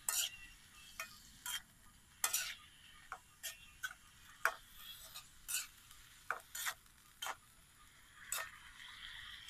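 Spatula scraping and stirring mushrooms and string beans in a metal pan over a wood fire, in short irregular strokes about one or two a second, over faint sizzling.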